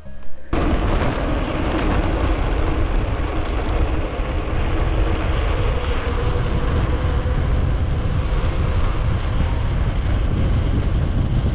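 Wind buffeting the camera microphone, with mountain-bike tyres rolling on a gravel road while riding. It starts abruptly about half a second in and then holds a steady, loud rushing.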